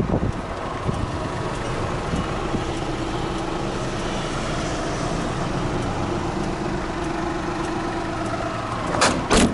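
Honda Acty kei truck engine idling steadily. Two short bumps come near the end.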